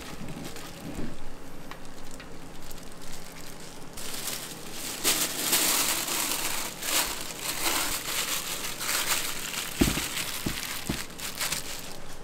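Plastic sheet crinkling as it is gathered and pulled over dough in a stainless steel bowl, the crackle starting about four seconds in, with a few soft thumps near the end. Before it, a spatula scraping through soft dough.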